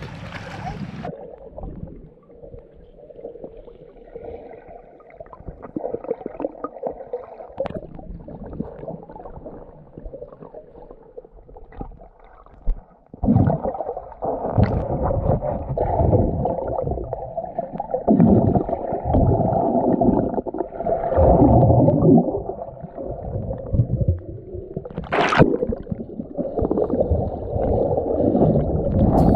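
Muffled underwater sound picked up by a camera held below the surface in shallow sea water: rumbling, gurgling water movement with the high end cut off, growing louder about halfway through.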